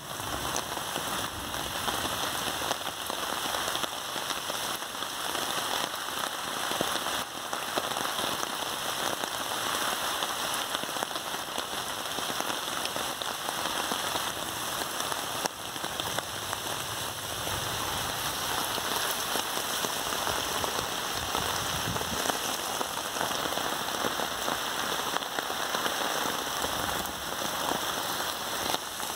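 Steady rain falling, an even hiss with scattered individual drop hits.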